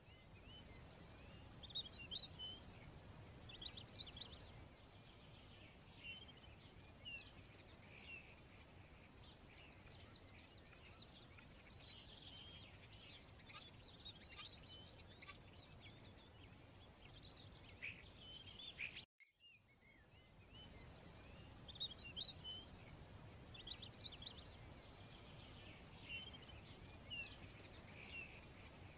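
Faint birdsong: scattered short high chirps over a low steady hum, cutting out briefly about nineteen seconds in.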